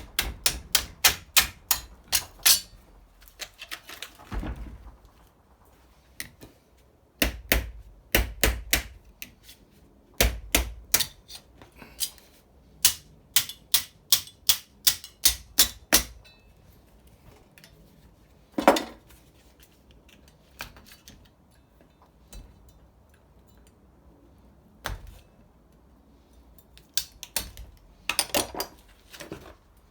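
Hammer blows on metal in rapid runs of about three to four strikes a second, broken by pauses and single knocks, as a heavy-duty transformer is knocked apart to get at its copper.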